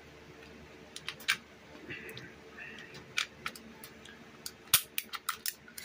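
Taurus G2C 9mm pistol being taken down by hand: sharp clicks and short scrapes of the slide and its parts being pulled back and worked, the clicks coming thick and fast in the last second or so.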